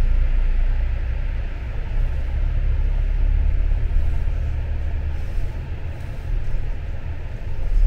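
A steady low rumble with no distinct clicks or knocks.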